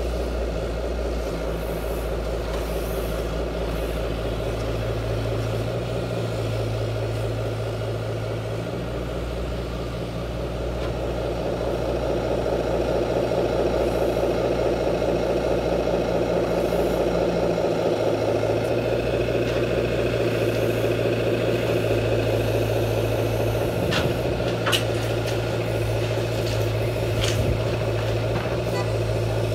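Large radio-controlled hydraulic excavator running as it digs and loads a truck: a steady machine hum whose loudness and tone shift as the hydraulics work. A few sharp clicks come in near the end.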